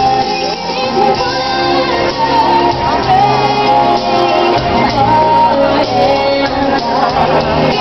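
Loud music with singing, the show's soundtrack.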